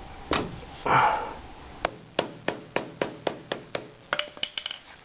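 Sharp light taps or knocks, about three or four a second for nearly three seconds, after two softer scraping sounds in the first second: hand work on the mower's freshly reassembled front wheel hub.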